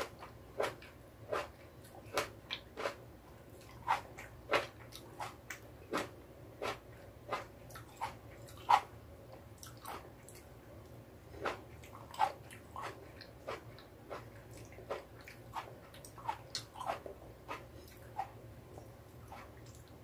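Biting and chewing cherry tomatoes close to the microphone: a string of short sharp clicks at an irregular pace, about one or two a second, over a faint low hum.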